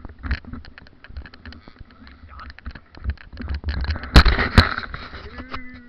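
Wind buffeting and handling noise on a body-worn action camera's microphone: a low rumble with many small irregular knocks, and two loud thumps close together about four seconds in.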